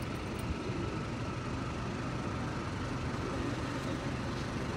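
Steady low outdoor rumble, an even background noise with no distinct events.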